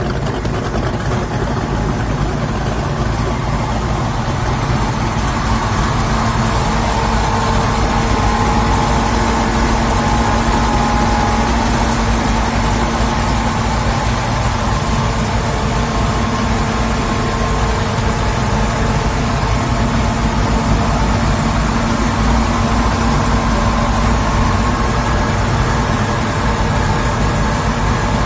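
Boat's carbureted V8 inboard engine idling steadily, a little louder from several seconds in.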